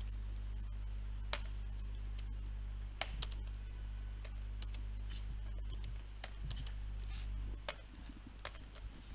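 Typing on a computer keyboard: irregular, scattered keystrokes over a steady low hum.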